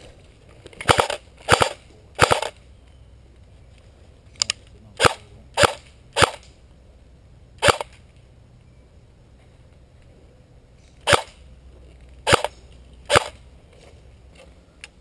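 Airsoft gun firing single shots, about eleven sharp cracks in three groups: three in quick succession, then five, then three, each roughly half a second to a second apart.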